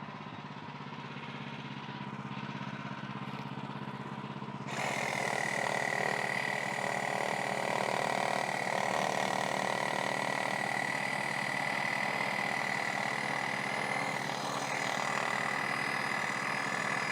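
Woodland Mills HM130MAX portable bandsaw mill's engine idling, then throttling up about five seconds in as the band blade runs through a pine log, a loud steady hiss with a high whine that holds to the end.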